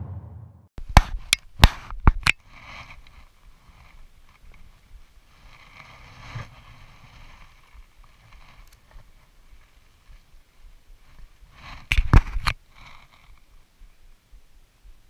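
Sharp clicks and knocks of handling noise in two short clusters, one about a second in and another about twelve seconds in, over a faint background hiss.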